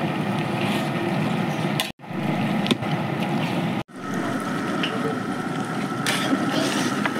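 Large aluminium pot of brinjal gravy boiling over an outdoor fire, a steady noisy bubbling. It cuts out abruptly twice, about two and four seconds in.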